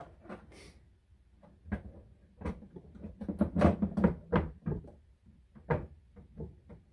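Clear plastic lid of a Brinsea Ovation 56 EX incubator being set down and seated on its plastic base: a string of plastic knocks and clicks, loudest in a cluster around the middle, with a last sharp knock shortly after.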